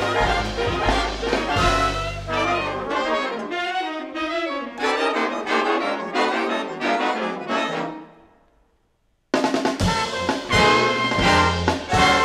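Big band of saxophones, trumpets and trombones with piano, double bass and drums playing live jazz. About three seconds in the bass end drops out and the horns carry a falling line that fades away to a brief silence, then the full band comes back in suddenly and loud.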